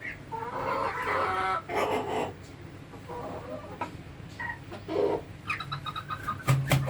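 Chickens clucking in short, irregular calls, with a quick run of sharp clicks and a low hum near the end.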